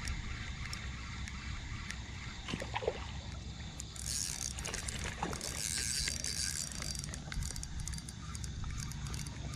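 Spinning reel being cranked on a lure retrieve from a fishing kayak, over water lapping at the hull and a steady low rumble. A hiss rises about four seconds in and fades about three seconds later.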